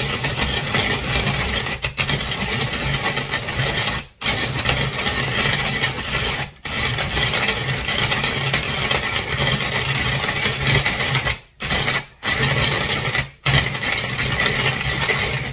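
Hand-cranked Tupperware rotary grater grinding coffee beans: a continuous rasping, scraping crunch. It stops briefly about five times.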